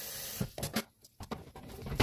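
Water pouring briefly from an electric kettle, stopping about half a second in, followed by a few light knocks and clicks of kitchenware being handled.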